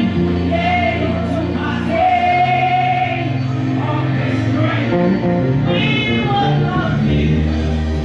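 Gospel choir singing with live band accompaniment, the voices carried over long held bass notes.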